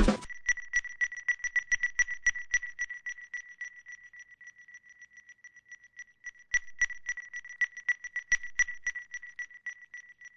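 A high electronic alarm-like tone beeping rapidly and evenly, with a faint click on each beep. It dies away, comes back louder about six and a half seconds in, then fades out.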